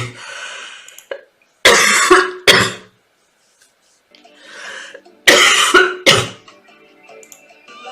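A girl coughing, four hard coughs in two pairs about three seconds apart, with softer breathy sounds before each pair.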